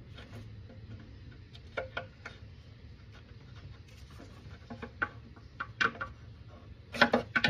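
Scattered small clicks and knocks of hand tools and plastic fittings being worked loose at a Toyota Sienna's intake manifold hose, with a quick cluster of louder knocks near the end, over a faint steady low hum.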